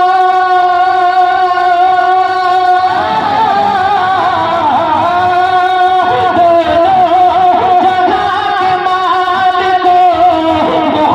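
Devotional naat music: a long note held steady for about three seconds, then a wavering, richly ornamented melody without words.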